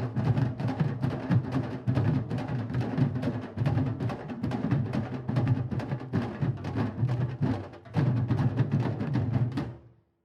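A candombe drum line (chico, repique and piano drums) playing together in a dense, driving rhythm, with sticks also striking the wooden drum shells. The drumming fades out to silence just before the end.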